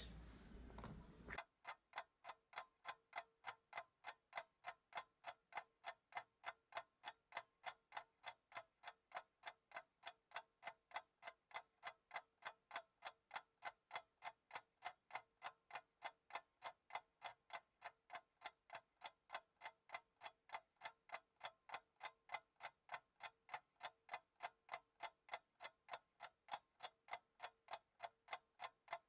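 Clock-like ticking, evenly spaced at about three ticks a second, starting about a second and a half in. It is a timer tick that runs through the alcohol hand rub.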